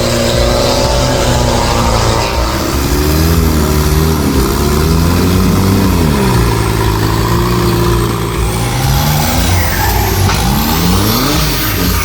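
Off-road 4x4 engines revving, their pitch rising and falling, with several engines overlapping near the end.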